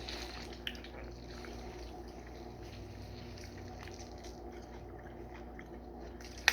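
A halved lemon being squeezed by hand, with small wet squishes and juice dripping onto cut fruit. A single sharp tap right at the end.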